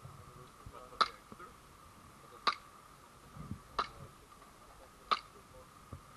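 Airsoft gun fired in single shots: four sharp cracks, about one every one and a half seconds, over a faint steady tone.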